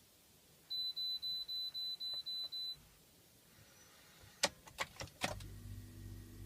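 Ford dashboard chime beeping eight times at about four a second at key-on, then a few sharp clicks near the middle and the 6.0L Power Stroke V8 diesel cranking and catching, running on steadily near the end.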